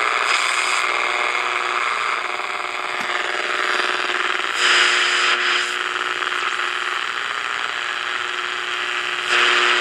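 Small 11-band portable shortwave radio's speaker giving out static hiss with a steady buzz, tuned across an empty shortwave band with no station on it. The hiss surges louder about five seconds in and again near the end.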